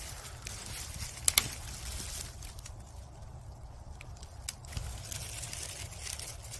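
Faint rustling and crackling of dry leaves and brush, with two sharp clicks, one about a second in and one near the middle, over a steady low rumble.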